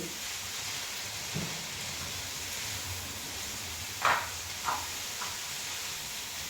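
Onions and peppers frying in a full pot, with a steady sizzle. A few light knocks against the pot about four seconds in, the first the loudest.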